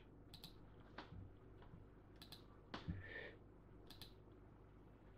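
A handful of faint, scattered clicks of a computer mouse and keyboard against near silence.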